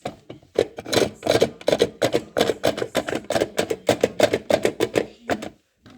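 Simba toy washing machine clattering: a fast, uneven run of plastic knocks and rattles, several a second, that stops shortly before the end.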